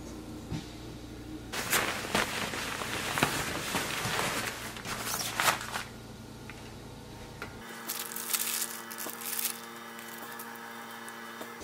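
Plastic wrapping on a crib mattress pad crinkling and rustling as it is handled, for about four seconds. A few seconds later there is softer, briefer rustling.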